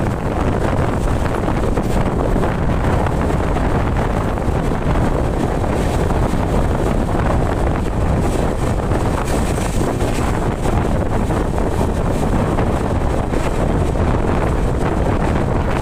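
Steady rushing wind buffeting the microphone over the running noise of a moving passenger train.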